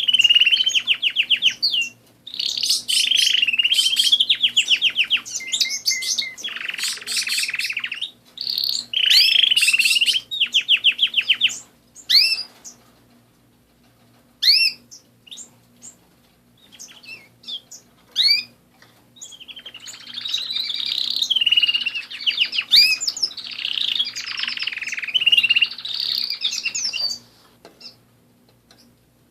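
Domestic canary singing: long runs of rapid trills and warbled phrases, breaking off about halfway into a few seconds of scattered single chirps, then another long run of song that stops near the end.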